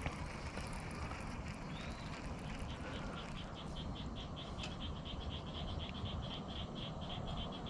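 A small animal calling from about three seconds in with a high, rhythmic chirp, about five pulses a second, over steady low outdoor background noise.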